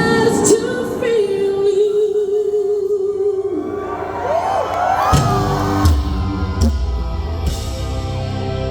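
Live rock concert heard from the crowd: a held tone, then audience whoops and cheers, and about five seconds in the band comes in with heavy bass and a few sharp hits.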